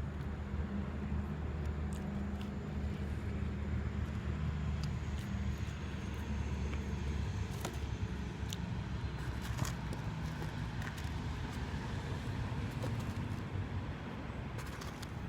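Steady low hum, with a few faint clicks about halfway through.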